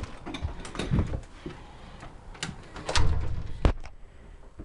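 House door being worked by its knob: latch clicks and the knocks and thumps of the door and its glass storm door opening and shutting. The loudest thump comes about three seconds in, followed shortly by a sharp click.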